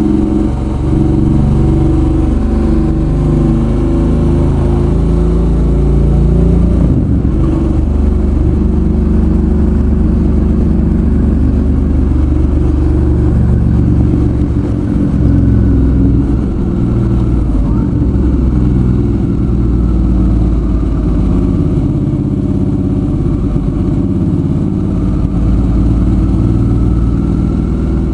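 Suzuki V-Strom 650's V-twin engine running under way, its engine speed rising and falling repeatedly, with road and wind noise.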